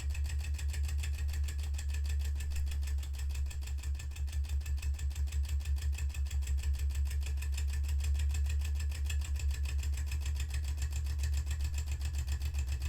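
Empire No.62 toy steam engine running fast under steam from its electric heater at 110 volts, its cylinder beating in a quick, even rhythm of many strokes a second over a steady low hum, as the engine gathers speed.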